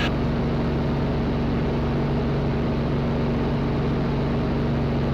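The UL Power engine and propeller of a Van's RV-7 droning steadily at full throttle in a climb, heard inside the cockpit. It is a low, even hum that holds one pitch throughout.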